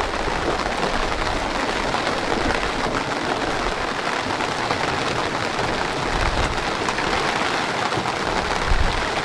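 Steady, heavy rain falling and pattering, with a few short low rumbles about two-thirds of the way through and near the end.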